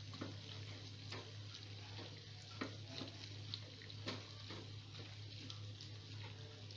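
Wooden spatula stirring macaroni in a thick milk-and-cheese sauce in a non-stick frying pan: soft, irregular taps and scrapes against the pan, about one a second, over a steady low hum.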